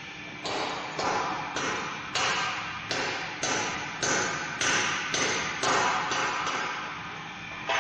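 Turbocharger rotor on a balancing machine being worked by hand: about a dozen short noisy strokes, roughly two a second, each starting sharply and fading quickly.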